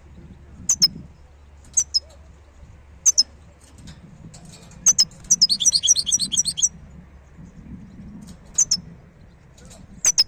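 Wild-caught European goldfinch singing: short high call notes every second or two, with one rapid twittering phrase of fast notes about five seconds in.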